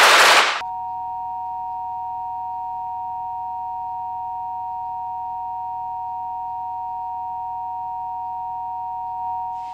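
A loud burst of harsh noise cuts off about half a second in. It gives way to a steady, high electronic tone of two close notes, a synthetic sound-design ring that holds level for about nine seconds and fades near the end.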